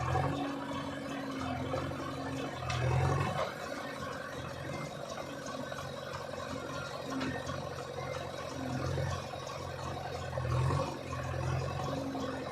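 A diesel engine running steadily, with its note swelling briefly about three seconds in and again near the end.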